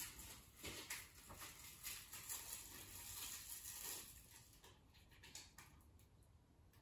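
Near silence with faint rustling and soft clicks, which die away after about four seconds, leaving low steady hiss.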